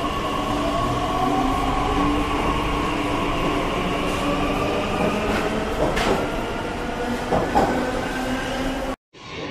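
Delhi Metro train running out of an underground station: the traction motors whine with steady tones and one rising tone as it pulls away, with a couple of sharp clacks near the end. The sound cuts off suddenly about nine seconds in.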